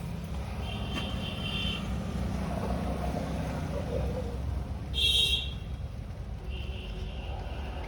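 Steady rumble of road traffic, with short high-pitched tones sounding three times: about a second in, loudest about five seconds in, and faintly near the end.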